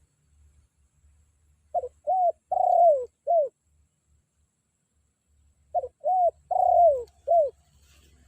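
Spotted dove (tekukur) decoy cooing its territorial call to challenge a rival: two identical four-note phrases about four seconds apart. Each is a short note, a second note, a longer note falling in pitch, and a short final note.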